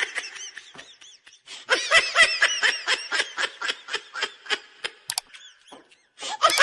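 Laughing sound effect: a single high-pitched voice laughing in quick, even ha-ha pulses, breaking off about a second in and starting again, with another laugh starting near the end and a short click just before.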